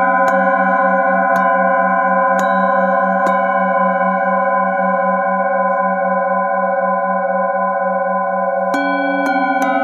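Metal singing bowls ringing together in several sustained overlapping tones, the lowest one wobbling slowly. A hand-held bowl is struck with a mallet about four times in the first three and a half seconds, the bowls ring on unstruck, and then a quick run of light strikes starts near the end.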